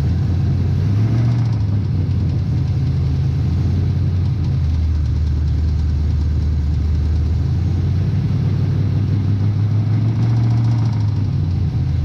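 Small-block Chevy 350 V8 running with a knock from a spun number 3 rod bearing. The engine speeds up slightly about a second in and again near the end.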